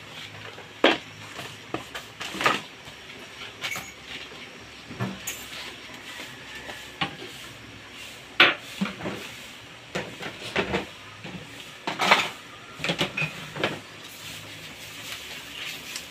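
Metal cookware clinking and knocking irregularly, about a dozen sharp strikes, some in quick clusters, over a faint steady hiss.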